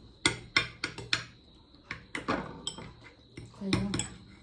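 Forks clinking and scraping on plates in a string of sharp, irregular clicks as momos are speared and picked up.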